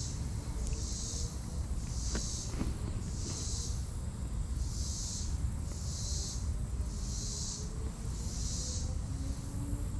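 Insect calling in a steady pulsing rhythm: a high buzzing pulse a little over half a second long, repeated about once a second, seven times. Under it runs a low steady rumble.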